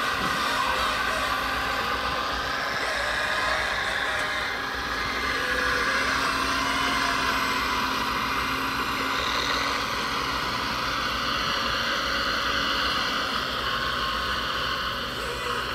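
Scale radio-controlled construction machines running, their electronic sound modules playing a steady diesel-engine sound as a loaded RC mining dump truck pulls away.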